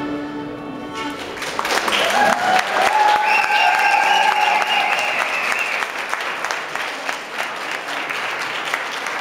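A Scottish country dance tune ends on a final held chord about a second in, followed by audience applause with a few voices calling out over it.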